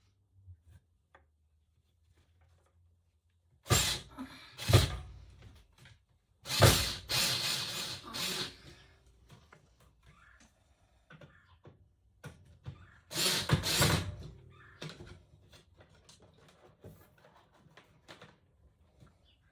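Knocking and scraping as pieces are pushed and fitted into place, in three louder bursts about four, seven and thirteen seconds in, with scattered light clicks between.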